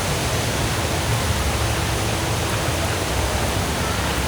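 The Rain Vortex indoor waterfall: a continuous, steady rush of water falling into its pool.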